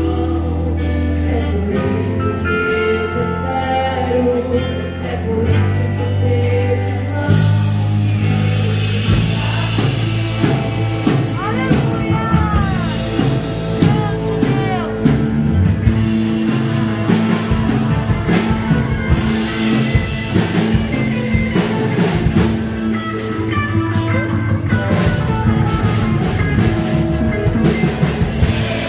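Christian worship band music: singing over sustained instrumental notes, with a drum kit beat that comes in fuller about a quarter of the way through.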